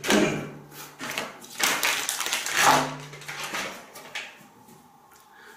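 Plastic packaging rustling and crinkling as it is handled, in several bursts that die down toward the end.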